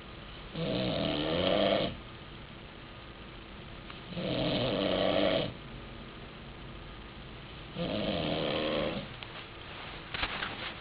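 A man snoring loudly: three long snores, each about a second and a half, coming about every three and a half seconds.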